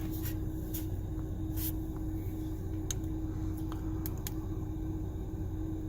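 Steady low hum inside a Ford Raptor's cab, with about six faint, light clicks in the first few seconds.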